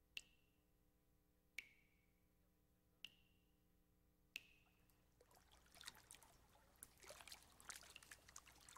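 Four single water drops plinking, about a second and a half apart, then from about five seconds in a faint, irregular crackling trickle of water.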